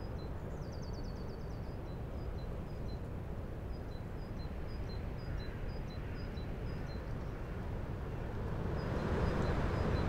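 Strong, gusty wind rushing through the bare branches of an old leafless birch tree, swelling into a louder gust near the end. Small birds chirp repeatedly in the background, with a quick trill about a second in.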